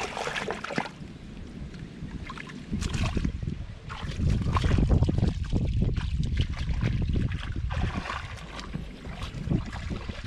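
Muddy water splashing and sloshing as a person wades and gropes by hand through the mud of a shallow drained pond, in irregular bursts. Wind rumbles on the microphone, louder from about three seconds in.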